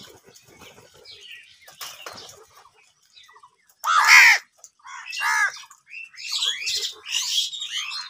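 House crows cawing: quiet scuffles and wing flutters at first, then from about four seconds in a loud harsh caw, followed by a run of overlapping caws.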